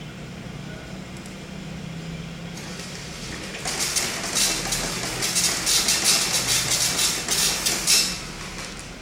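Dot-matrix printer printing on continuous fanfold form paper: the print head buzzes across line after line in a rapid rattling run from about a third of the way in until near the end, then stops. A steady low hum runs underneath.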